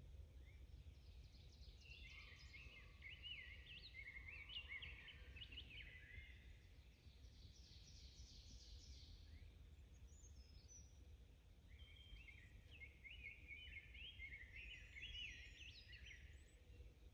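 Faint songbird singing in the trees: two long runs of quick, pitch-jumping notes, one about two seconds in and another near the end, over a low steady rumble.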